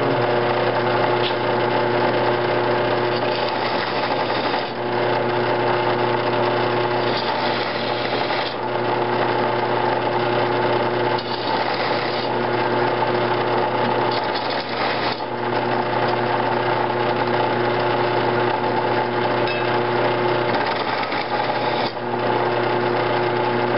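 Drill press motor running steadily while a bit chamfers the edges of drilled holes in a metal mounting plate held freehand. The cutting sound changes every few seconds as the plate is moved from hole to hole.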